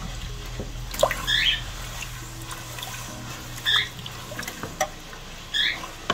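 Wooden spoon stirring a thickening milk-and-roux white sauce in a stainless steel stockpot, the liquid swishing, kept moving so it doesn't scorch on the bottom. Several short high squeaks come through a second or two apart over a low steady hum.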